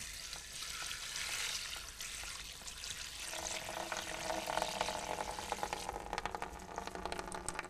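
Cooled berry liquid poured onto a bed of straw in a wooden barrel to strain it, a steady splashing and crackling through the straw. About three seconds in the pouring sound gets fuller and a little louder.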